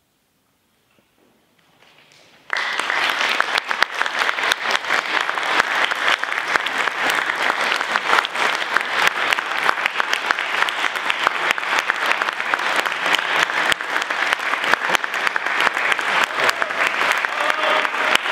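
Concert audience applauding. After a short hush the clapping breaks out suddenly about two and a half seconds in and then continues steadily.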